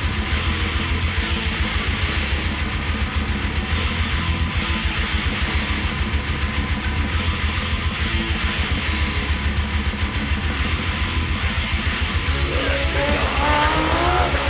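Rock music with electric guitar over a steady, fast drum beat and a heavy bass line.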